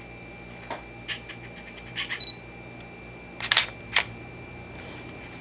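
Canon EOS Rebel T3 digital SLR taking a picture. Light clicks are followed by a short high beep about two seconds in, the autofocus confirming focus. Then the mirror and shutter fire in sharp clicks about three and a half seconds in and again half a second later.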